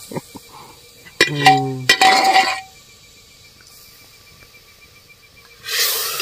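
Metal cookware clinking and knocking: an aluminium pot lid and a metal ladle against the pot over a wood fire, a few sharp taps early on, with a short rush of hiss just after two seconds and a longer one near the end.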